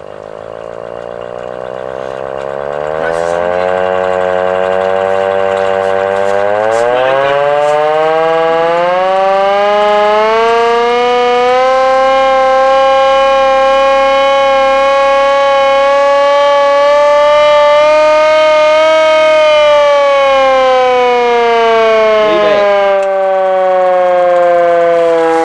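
Hand-cranked air raid siren made by Carter Nelson, cranked up from a low pitch into a loud wail over roughly the first ten seconds, held steady, then slowly falling in pitch as it winds down.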